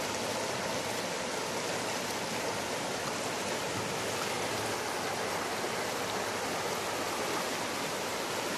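Shallow, fast-flowing river running over a stony bed: a steady rush of water.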